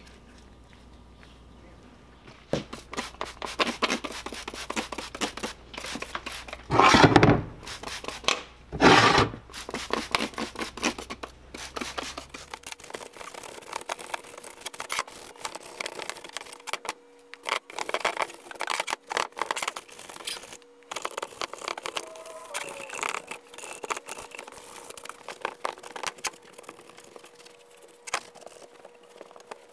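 Small hand wire brush scrubbing the dirty cast-iron frame of a Dake arbor press: a rapid rasping scrape in many short strokes, with two louder bursts of scrubbing about seven and nine seconds in.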